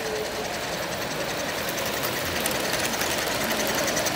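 Model electric trains running on the layout's track: a steady whir with a fast, even clatter of wheels on rail, growing a little louder as the model steam locomotive and its passenger cars pass close by.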